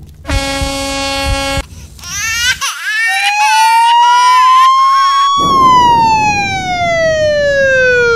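A vehicle horn sounds one steady note for about a second. Then a wailing siren starts with a wavering sound, rises slowly in pitch for a couple of seconds, and falls slowly over a steady rushing noise.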